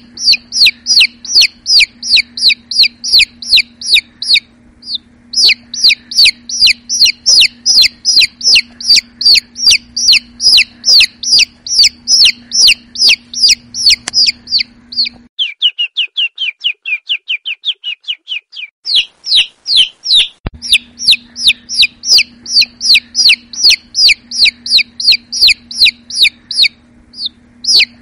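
Domestic chicks peeping: loud, short calls that fall in pitch, repeated about three a second. About halfway, a lower and quicker run of peeps takes over for a few seconds before the high peeping resumes.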